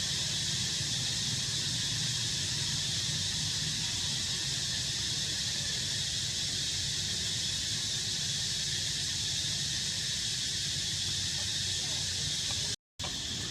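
Steady outdoor background hiss with a low hum underneath, cutting out for an instant near the end.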